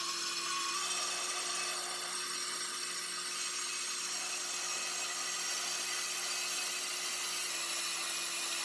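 A power tool running steadily, a continuous whine with hiss.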